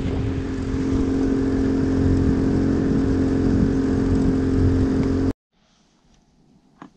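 Small boat's outboard motor running steadily under way, an even drone at a constant pitch. It cuts off abruptly about five seconds in, leaving near quiet with one faint tap near the end.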